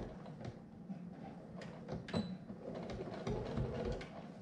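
Sewing machine stopping at the end of a seam, then a few light clicks and knocks as the fabric is handled at the machine.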